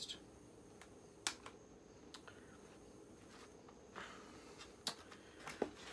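Faint handling of a cardboard doll box being worked open with a small tool: a few sharp clicks, about a second in and again near five seconds, with a short light scraping rustle around four seconds.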